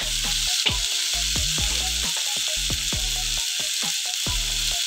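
Sliced onions, tomato and green chilli frying in oil in a pan, with freshly added chilli and coriander powder: a steady sizzle. Background music with short stepped notes plays under it.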